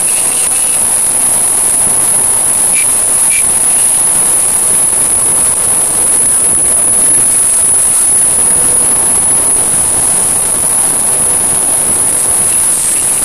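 Loud, steady hiss of static-like noise with a constant high-pitched whine over it, unchanging throughout.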